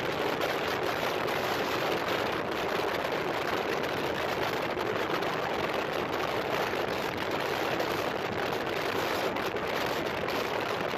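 Steady rushing wind and road noise from a motorcycle moving at speed, with no clear engine note standing out.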